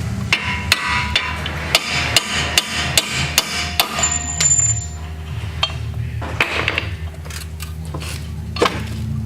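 Hammer blows driving out the bolts at the bottom of a Pontiac G6's front strut: an even run of sharp strikes, about two to three a second, for roughly four seconds, then a few scattered knocks over a steady low hum.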